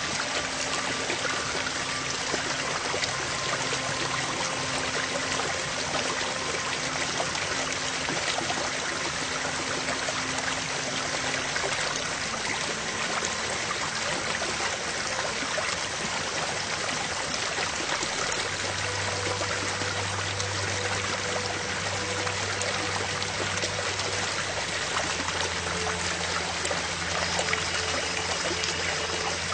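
Steady rushing, water-like noise with faint sustained low tones underneath that change every few seconds.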